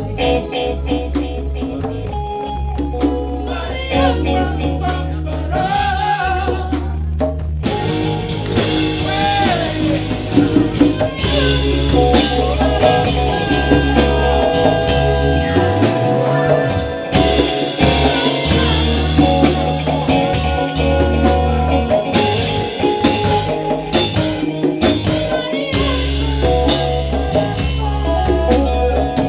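A live band playing, with a strong electric bass line under drum kit and congas, and a voice singing at times.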